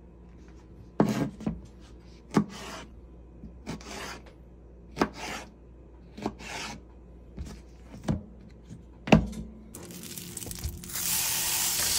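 Chef's knife drawing scoring cuts through raw nopal cactus pads and knocking on the cutting board, about a dozen irregular strokes. About ten seconds in, a frying pan of hot oil starts sizzling steadily as raw pork chorizo is squeezed into it.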